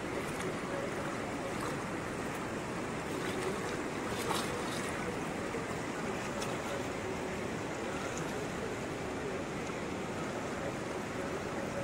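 Fast mountain river rushing steadily around boulders, with a single sharp click about four seconds in.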